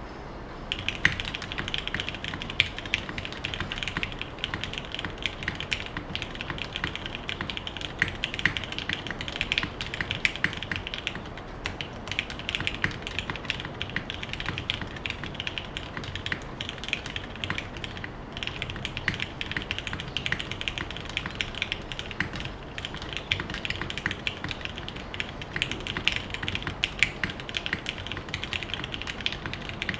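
Fast typing on a Geonworks F1-88 mechanical keyboard with lubed Cherry Hyperglide Black linear switches on an aluminium plate and GMK keycaps: a dense, continuous run of key clacks starting about a second in, with a couple of brief pauses.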